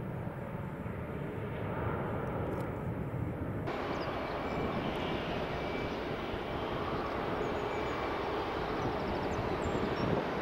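Boeing 737-400 freighter's CFM56 jet engines running, first as it climbs out after takeoff. Then, after a cut a little under four seconds in, the same aircraft on final approach, its engine rumble carrying a thin steady high whine.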